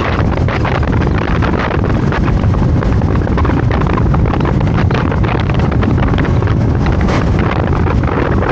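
Heavy wind buffeting the microphone of a camera riding on a moving scooter: a loud, steady rumbling rush of noise.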